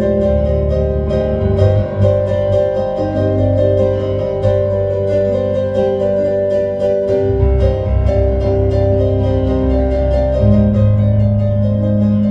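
Solo piano improvisation: quick repeated notes and chords over held low bass notes, at a steady loudness.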